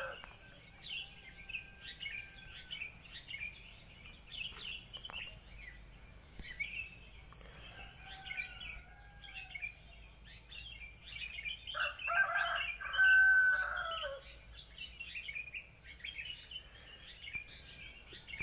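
Small birds chirping throughout over a steady high insect trill, with a rooster crowing loudly about twelve seconds in and fainter crows farther off earlier.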